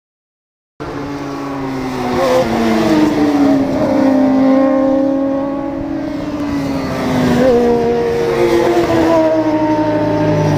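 Racing motorcycle engines running at high revs as several bikes come through the corner one after another. Their pitch slides down with a couple of short jumps. The sound cuts in abruptly about a second in.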